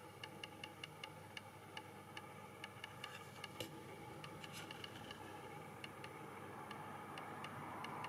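Faint, rapid ticking, about four or five sharp ticks a second with a few short gaps, over a low steady hiss.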